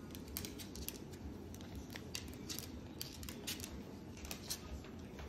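Moluccan cockatoo's claws clicking and tapping on a granite countertop as it walks and hops, in irregular sharp clicks a few times a second.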